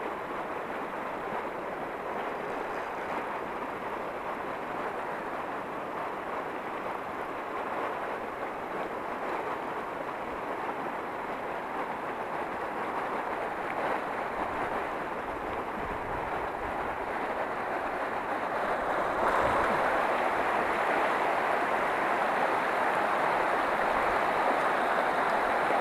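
River water rushing over rocks in shallow rapids, a steady rush that gets louder about nineteen seconds in.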